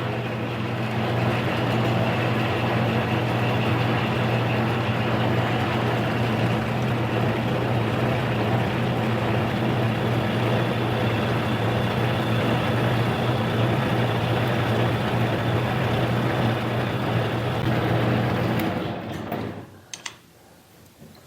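Harbor Freight mini lathe with a 1 hp AC motor and mechanical variable-speed drive, running steadily in high gear with a low hum while taking a 25-thousandths cut off the diameter of an aluminium bar. The motor handles the cut without strain. Near the end the machine is switched off and winds down, and a few light clicks follow.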